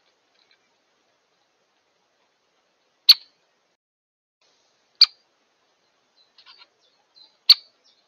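Great spotted woodpecker giving three sharp, single 'kik' calls, a couple of seconds apart, with a few faint ticks between the last two.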